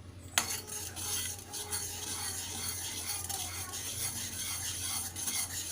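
A spoon stirring and scraping in a cooking pot: a quick, continuous run of small scrapes and clinks that starts suddenly about half a second in.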